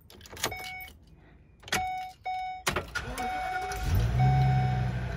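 Inside the cab of a 2019 Ford motorhome: a few clicks and repeated steady dashboard chimes, then the engine cranks and starts about four seconds in and settles into a steady idle while the chimes keep sounding. It is being run to warm the oil before an oil change.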